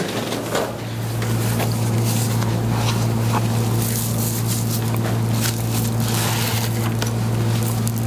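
Electric massager running with a steady motor hum, starting about half a second in.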